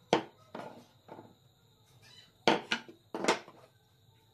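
Pieces of wood, curved frame halves and a round disc, knocking on a workbench top as they are set down and handled: about six sharp knocks, the loudest just after the start and a quick cluster of three in the second half.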